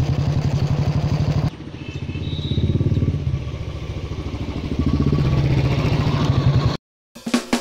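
Motorcycle engine running with an even, low firing rhythm as the bike rides along. About a second and a half in, the sound cuts to a quieter engine that grows louder as it approaches. It cuts off sharply near the end, and music starts just after.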